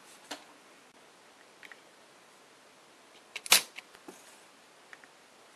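A single sharp click about three and a half seconds in, with a few faint ticks before and after it, over low hiss.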